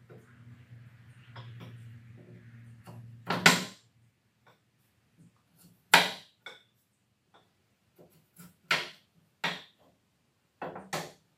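Wooden shelf-frame parts knocking against each other and the table saw's top as the rails are fitted into the side pieces: about six sharp wooden knocks spread out, the loudest a few seconds in. A low steady hum fades out about four seconds in.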